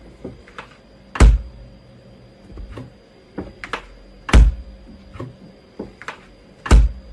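Three loud, deep thunks a little over two to three seconds apart, with lighter knocks and taps in between: a hard, flat panel being bumped and knocked about.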